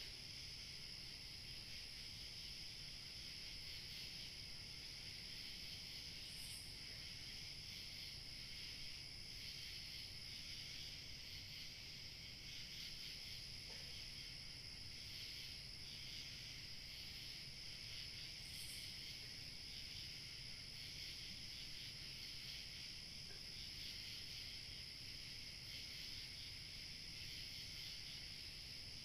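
Night-time chorus of crickets and other insects, a steady shrill chirring that never lets up, with a thin higher trill over it and two short higher chirps.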